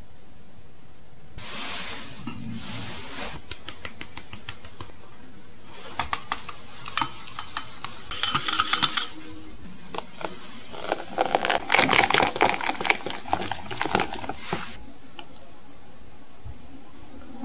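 Small wire whisk clicking and scraping against a glass bowl while mixing matcha, in two spells of quick, irregular clicks, the second longer and louder.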